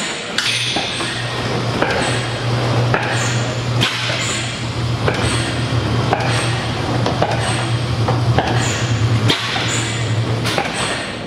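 Antique Schleicher, Schumm & Co. stationary gas engine running slowly, its valve gear and gears clicking and knocking in a steady rhythm of about one sharp click a second, over a low hum that stops near the end.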